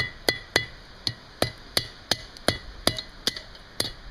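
Blacksmith's hammer striking hot steel on an anvil, about three blows a second with a ringing note after each, drawing out and tapering the neck of a forged ram's head.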